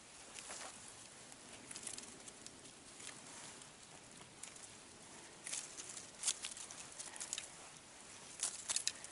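Faint rustling and light crackling of low lingonberry shrubs and dry leaves as berries are picked by hand, the crackles coming thicker in the last few seconds.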